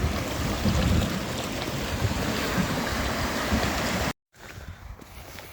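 Wind buffeting the microphone over surf on the rocks. It cuts off abruptly about four seconds in and gives way to a much quieter stretch with a few faint clicks.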